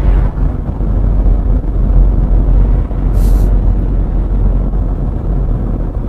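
Heavy, steady road and engine rumble inside a moving car's cabin, with a brief hiss about three seconds in.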